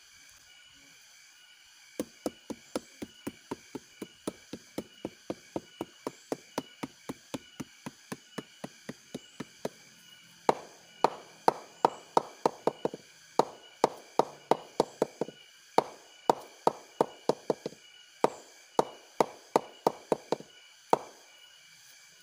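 A wooden mallet of about a kilo knocks repeatedly on the flower stalk of an arenga sugar palm, about three blows a second. The blows are lighter for the first several seconds, then harder in runs broken by short pauses. This beating of the stalk is done to bring on the flow of sap before tapping.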